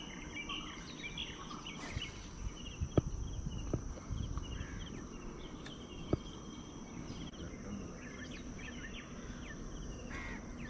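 Outdoor ambience of birds chirping and a steady high insect drone over a low rumble, with a few sharp clicks, the loudest about a third of the way in and another a little past the middle.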